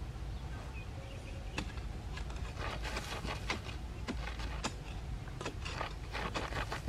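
A dog digging with its front paws in dry, sandy soil and dead leaves: quick bouts of scratching and scraping that start about a second and a half in, over a steady low rumble.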